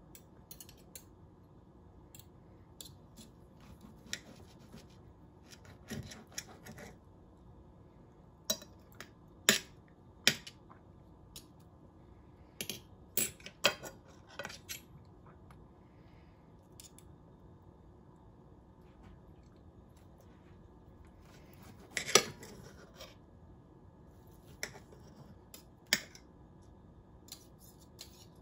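Knife and fork clinking and scraping on a plate as a pork chop is cut, in scattered sharp clicks, the loudest a little over twenty seconds in.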